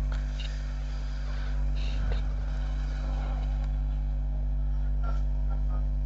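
Steady low electrical hum, with a few faint clicks and knocks.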